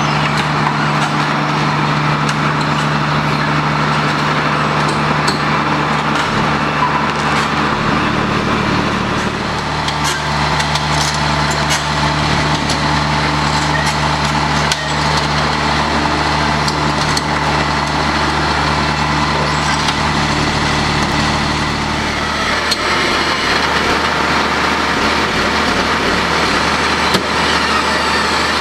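Diesel engine of a Kleemann Mobirex EVO 110 tracked impact crusher running steadily while the machine tracks onto a lowboy trailer. Its note shifts about eight seconds in and drops again a little past twenty seconds in.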